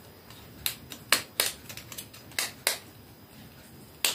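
Small plastic toy clicking as it is snapped and fiddled with in the hands: about six sharp, separate clicks at uneven intervals.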